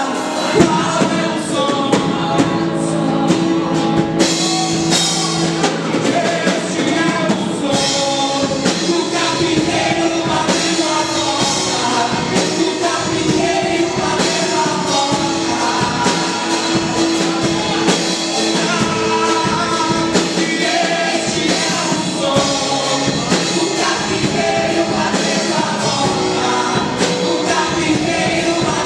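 Contemporary Christian worship music played continuously by a band with drums, with singing over it.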